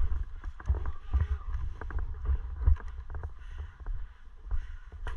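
Movement noise from a body-mounted GoPro as the player walks and shifts position: irregular low thumps of footsteps and camera jostling, with short clicks and rustles of gear and the rifle replica.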